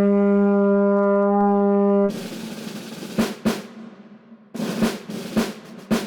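A loud, held brass horn note that cuts off about two seconds in, followed by a snare drum roll with scattered sharp drum hits: a game-show music sting.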